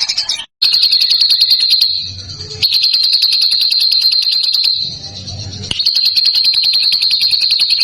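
A songbird's rapid, harsh rattling trill, high-pitched and repeated in three long bursts with short, quieter breaks between them.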